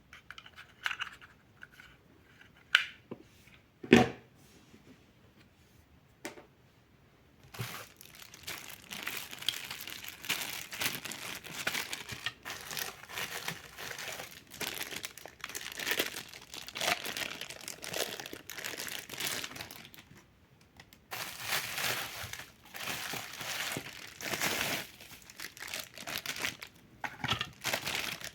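A few scattered clicks and one sharp knock about four seconds in. Then, from about seven seconds on, packaging is crinkled and handled without a break, except for a brief pause about three-quarters through.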